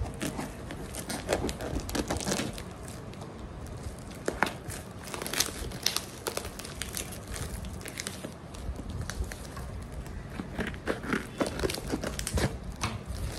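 Plastic courier parcel wrapping crinkling and tearing as it is cut and ripped open by hand, with many sharp crackles throughout.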